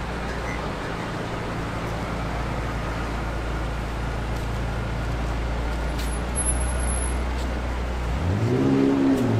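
City road traffic: a steady low engine hum, and near the end a vehicle's engine note rising and then falling as it accelerates away.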